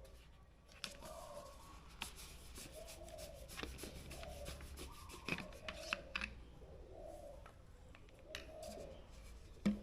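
A bird calling faintly, a short call repeated about once a second, over scattered clicks and light rubbing.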